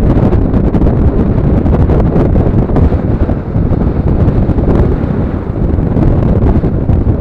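Heavy wind buffeting the microphone of a camera on a moving vehicle, a steady low rumble of rushing air.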